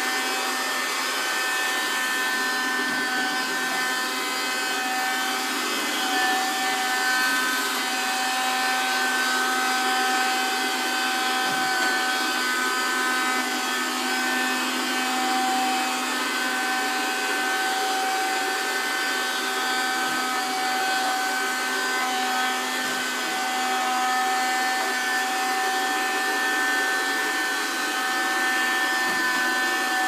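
Small robot vacuum cleaner running steadily across a hard wooden floor: a constant motor and fan whine with a few steady high tones over the suction noise.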